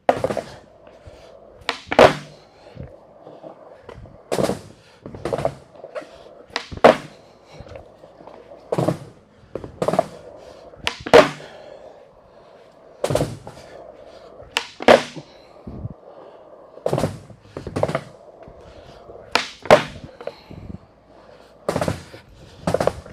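Skateboard on smooth concrete: the wheels rolling with a steady hum, broken every second or two by sharp wooden clacks of the board popping and landing during flip-trick attempts.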